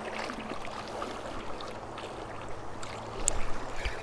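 Creek water flowing and splashing around a wading angler, a steady rushing wash, with a louder stretch and a sharp click about three seconds in.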